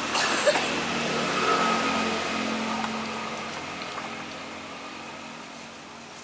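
A motor vehicle passing by: its engine hum swells over the first two seconds, then slowly fades away.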